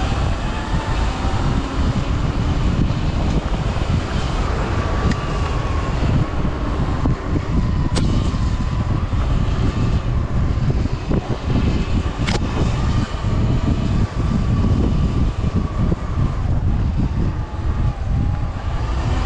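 Sur-Ron electric dirt bike ridden over a bumpy dirt trail: a faint motor whine that rises and falls slightly in pitch over heavy rumble and wind on the microphone. Two sharp knocks, about eight and twelve seconds in.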